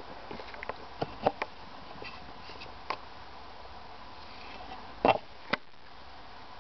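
Handling noise around a hamster cage: a few light clicks and knocks over a steady hiss, a small cluster about a second in and the two loudest near the end.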